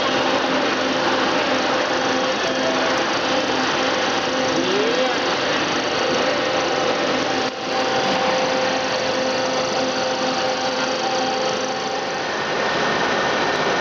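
Rice milling machine running steadily: a constant hum with a loud, even hiss over it, briefly dipping about halfway through.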